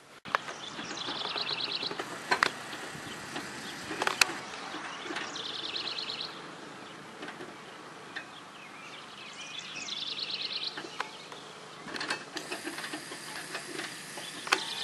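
A songbird repeating a short, rapid trill about every four to five seconds over a steady background hiss, with a few sharp clicks or knocks between the trills.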